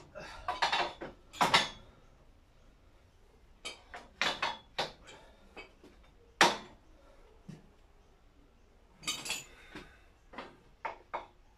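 Metal clunks and scrapes as a heavy steel bogie with its wheel sets is pushed along a steel frame and over wooden blocks. The clatter comes in a few bursts, with one sharp, loud knock about six and a half seconds in.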